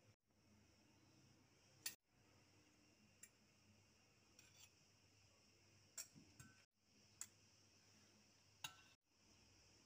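A metal spoon clinking lightly against a serving platter of food, about five short sharp clicks spaced a second or more apart, amid near silence.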